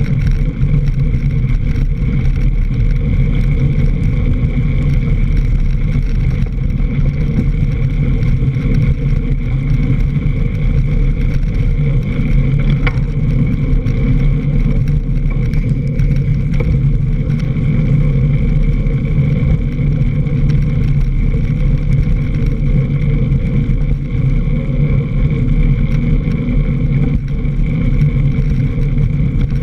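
Loud, steady rumble and rattle of a mountain bike riding fast over a dirt and leaf-covered trail, picked up by a camera mounted on the front fork right beside the wheel, with wind noise on the microphone.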